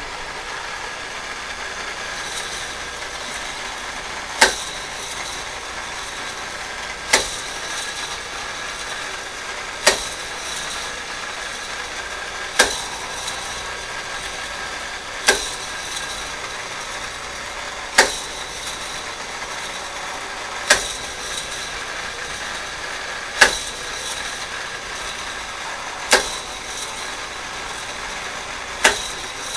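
K'NEX Rippin' Rocket 2 toy roller coaster running: its motor-driven lift whirs steadily, with a sharp plastic clack about every two and three-quarter seconds, ten times in all.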